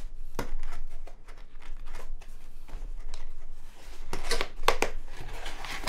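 Flat cardboard mailer box being opened by hand: scattered scrapes, taps and rustles of cardboard, with a louder run of scraping and tearing about four seconds in.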